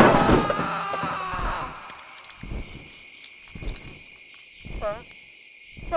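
Night ambience of crickets chirring steadily as a music sting dies away over the first couple of seconds, with a short hooting call near the end.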